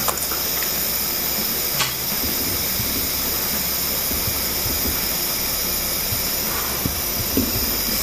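Steady hiss, with one light tap about two seconds in.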